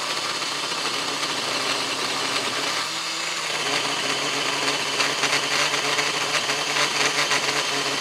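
DeWalt 20V cordless pole saw's electric motor and chain cutting steadily into a thick log under heavy load: a steady motor whine over the rasp of the chain through wood, sounding hard pressed. From about five seconds in, the cutting turns choppier.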